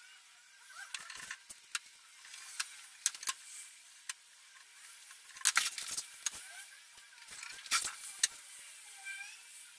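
Masking tape being worked onto a wooden cabinet front: short pulls and rips of tape with scattered clicks and rustles of hands pressing it down. The two loudest ripping strips come about five and a half and nearly eight seconds in.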